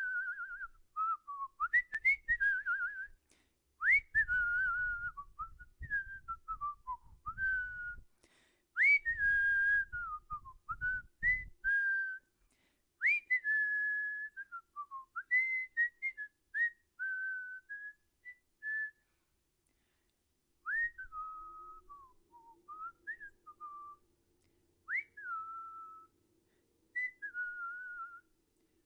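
A person whistling a wandering tune in one clear tone. Each short phrase opens with a quick upward swoop, then dips and wavers, with a pause of about two seconds past the middle.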